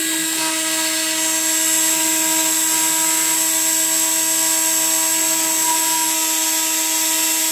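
High-speed Wolfgang Engineering spindle on a CNC router running with a steady whine while a fine engraving bit routes isolation traces through the copper of a PCB blank. Several fixed tones hold level over a steady high hiss.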